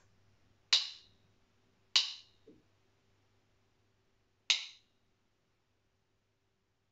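Two wooden sticks tapped together three times in a slow rhythm, with a long silent rest before the third tap.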